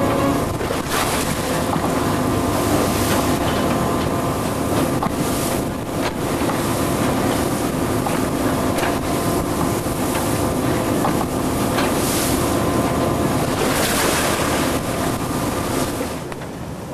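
Wind buffeting the microphone on a salmon seiner's deck, over the steady drone of the boat's engine and the wash of rough sea. It eases off slightly near the end.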